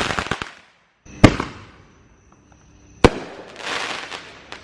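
Fireworks going off: a crackle trailing away, then two sharp bangs about two seconds apart, the second followed by a spreading crackle.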